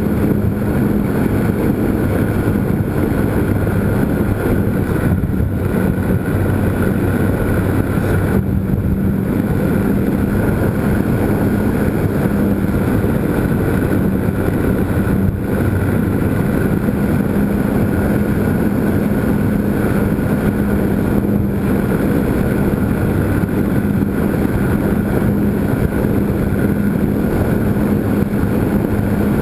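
Electric motor and propeller of a GWS Slow Stick RC airplane, heard from the camera mounted on it in flight: a loud, steady motor drone with air rushing past. The tone shifts slightly about eight seconds in.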